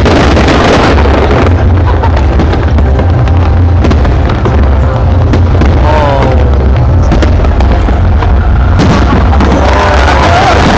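A dense fireworks display: many bursts and booms overlapping continuously over a steady low rumble, very loud.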